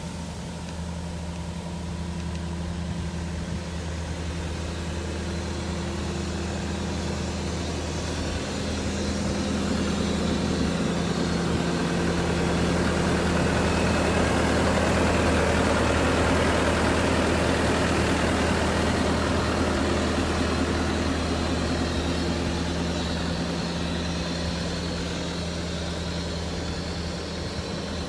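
Diesel engine of a John Deere 333E compact track loader running steadily. It grows louder through the middle and eases off again toward the end.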